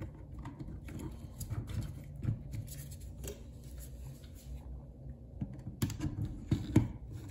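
Handling noise of small metal parts: scattered light clicks and taps as a key and collar are fitted into a trimmer attachment's gearbox head, then a few sharper knocks near the end as the aluminium trimmer shaft is brought against the head.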